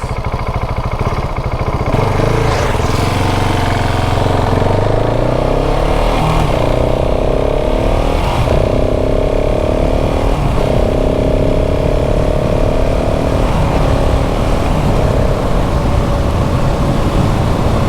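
KTM 690 SMC R's LC4 single-cylinder engine pulling on the road, revs rising and dropping at several upshifts, then running steadily at cruising speed.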